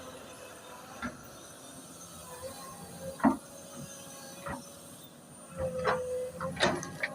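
Excavator working: its engine running with a low hum and a steady whine, under a series of sharp metallic clanks and knocks, the loudest about three seconds in and several close together near the end.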